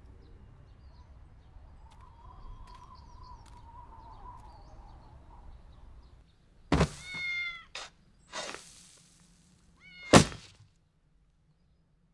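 A kitten meowing twice, loud and sudden, about three seconds apart, with a shorter raspy sound between the meows. Before that there is only faint outdoor background.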